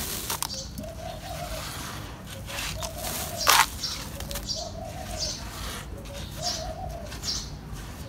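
Dry, crumbly cement powder poured in a stream into a metal basin of wet cement paste, a steady soft hiss with one sharp knock about three and a half seconds in. Behind it a dove coos again and again, about every two seconds.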